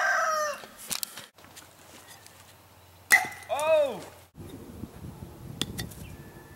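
A rooster's crow trails off at the start. About three seconds in, a thrown wooden Aunt Sally stick strikes with one sharp crack, followed at once by a short rising-and-falling shout. A few lighter knocks come near the end.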